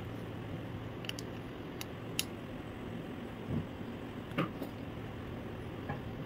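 Scattered light clicks and taps of a circuit board and a TO-220 voltage-regulator IC being handled and fitted together, with a few sharp ticks and two duller knocks, over a steady low hum.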